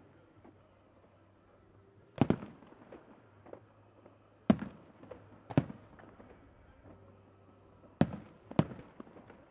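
Aerial fireworks going off: five loud bangs at uneven intervals, each with a short echoing tail, and fainter pops between them.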